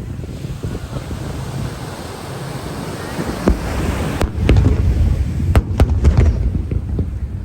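Japanese fireworks bursting overhead: a few sharp bangs, the loudest cluster a little past the middle, over a continuous low rumble of reports and wind on the microphone.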